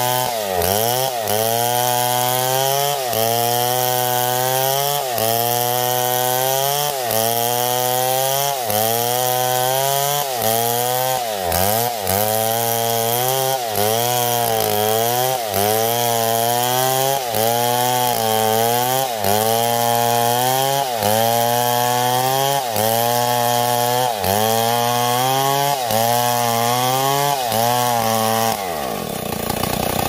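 Two-stroke chainsaw ripping lengthwise along a log, its engine pitch dipping and recovering about once a second as the bar is pushed into the cut. Near the end it drops to idle.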